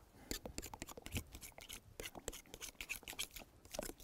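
Faint, irregular scraping and light clicks of carbon black paint being worked into a batch of gel by hand.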